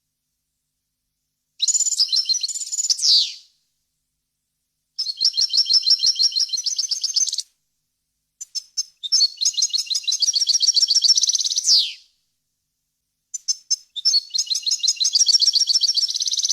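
European goldfinch singing: four phrases of rapid twittering trills with short pauses between them, several of them ending in a quick falling note.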